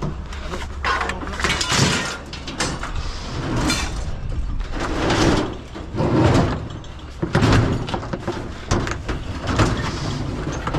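Scraping and clunking of metal scrap as a heavy curbside item is shoved and turned to squeeze it into an already full load, in a series of irregular shoves and scrapes.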